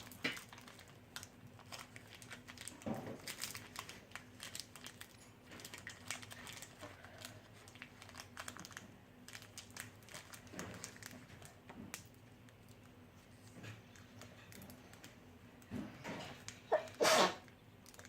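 Foil wrapper of a Pokémon Evolutions booster pack crinkling and tearing open, then cards being handled, with scattered small crackles and clicks. A short, louder burst near the end.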